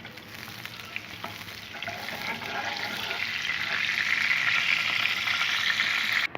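Butter melting and sizzling in hot oil in a frying pan as it is stirred, with a few light clicks of the utensil against the pan. The sizzle grows louder through the second half and cuts off suddenly near the end.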